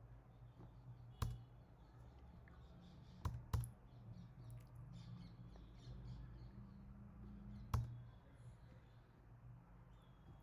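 Four sharp clicks of computer input, keys or mouse buttons, two of them close together about three and a half seconds in, over a faint low steady hum.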